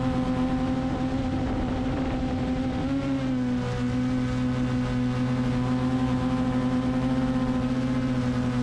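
Steady motor hum with a whine from a multirotor drone's propellers; the pitch dips briefly about three seconds in, then holds steady again.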